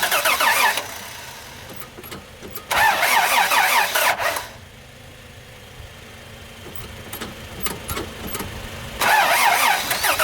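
Starter motor of a 1983 Toyota FJ60 Land Cruiser cranking in three short bursts, each a second or two long, with quiet lulls between them and a few sharp clicks before the last. These are attempts to start an engine that has been hard to get running, which the owner goes on to blame on the starter.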